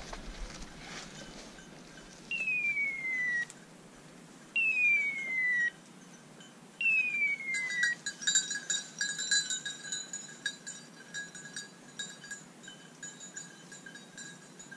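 A setter's electronic beeper collar gives three falling whistle calls, each about a second long and about two seconds apart: the hawk-cry signal that the dog is holding point. From about halfway on, a dog bell jingles on and off with light clicks as the dog moves through the brush.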